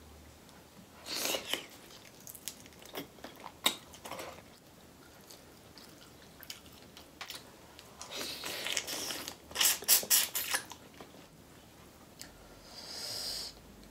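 Close-miked eating of a seafood boil in butter sauce: wet smacking, squishing and chewing as sauce-soaked shrimp and lobster are picked out by hand and eaten, in irregular clusters that are loudest about eight to ten seconds in. A longer hissing sound follows near the end.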